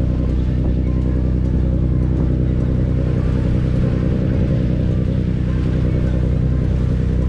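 Catamaran's engines running steadily under way, a constant low drone.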